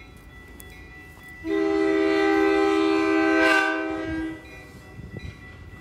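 Horn of an approaching passenger train sounding one long blast of about three seconds, starting about a second and a half in.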